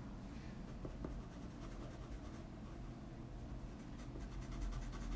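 Coloured pencil scratching softly across paper in rapid, short shading strokes, with the strokes coming thickest in the second half.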